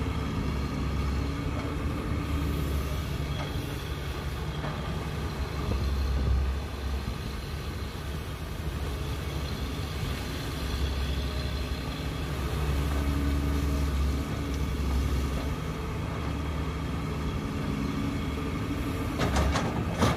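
Caterpillar 322C excavator's diesel engine running and labouring under hydraulic load as it digs, swings and dumps, its low rumble swelling several times, with a steady whine over it. Near the end a short clatter as a bucket of dirt drops into the steel bed of the dump truck.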